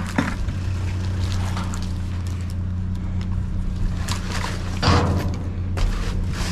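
A steady low machine hum, like an idling engine, runs under scattered small clicks and rustles of rummaging through a pile of junk. A louder scraping rustle comes about five seconds in.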